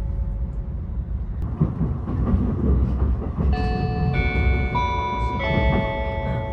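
Cabin of a limited express train running, with a steady low rumble, then the onboard announcement chime plays a four-note melody starting about halfway through, the notes ringing on into each other. The chime signals that a passenger announcement is about to follow.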